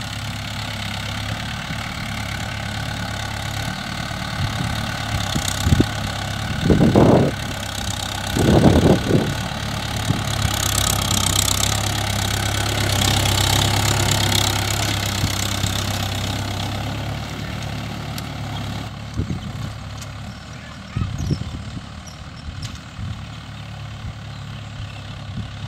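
Mahindra Yuvo 575 DI tractor's four-cylinder diesel engine running steadily while it pulls a tine cultivator through the soil. It grows louder as the tractor passes close, around the middle, then fades as it drives away. Two short low bumps stand out about a third of the way in.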